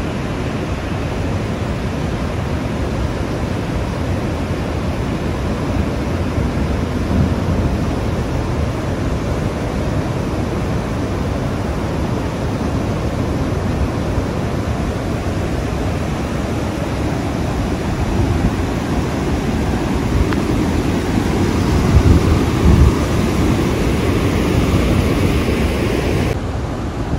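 River in flood rushing past a dam and its open gate: a loud, steady rush of water with a low rumble underneath. A couple of louder low thumps about 22 seconds in.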